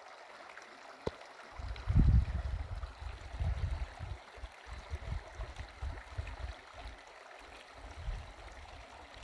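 River rushing steadily, with irregular low rumbles on the microphone from about a second and a half in, loudest around two seconds. A single click about a second in.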